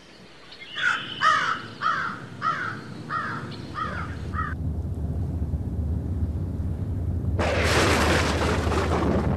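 A bird calls seven times in quick succession, then a low rumble of thunder sets in and a steady hiss of rain starts suddenly near the end.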